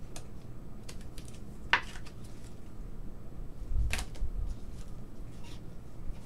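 Trading cards handled by gloved hands and laid onto a stack: scattered soft clicks and rustles, with two sharper snaps, one about two seconds in and a louder one about four seconds in with a low thump.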